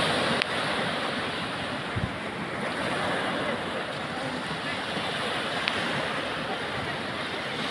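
Small sea waves breaking and washing up over sand at the water's edge: a steady rush of surf.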